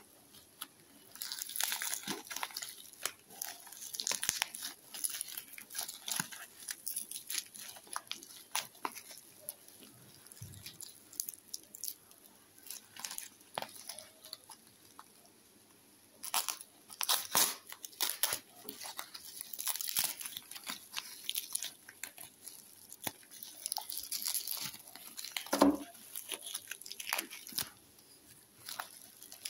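Plastic cling wrap crinkling and tape tearing as it is peeled off a small toy train by hand, in irregular crackly bursts with quiet pauses. A single sharp knock comes near the end.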